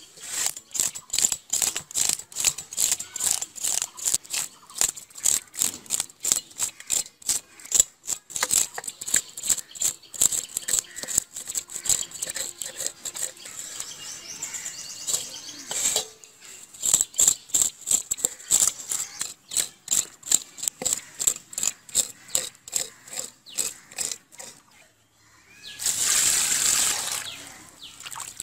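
Fish being scaled in a stainless-steel bowl: quick, sharp scraping strokes, several a second, with a couple of short pauses. Near the end, water gushes into the bowl for about two seconds.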